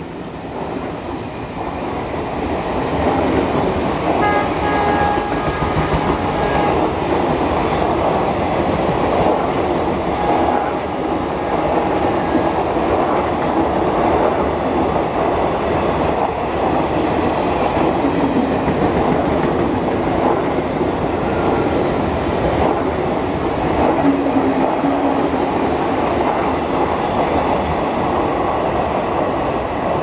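Passenger coaches of an express train passing at speed, a steady loud rolling noise. A few brief faint tones sound about four seconds in and again around ten seconds in.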